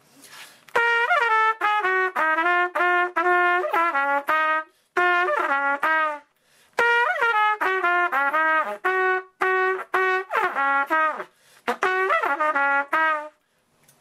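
Trumpet playing several short blues-style phrases with brief pauses between them, the notes ornamented with flips: a quick lip slur up over the top of the note and back down to it.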